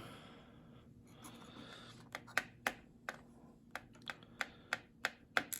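Small metal lock parts clicking and ticking as the pins and springs are taken out of a pin-tumbler padlock cylinder. About a dozen sharp, irregular clicks come in the last three and a half seconds.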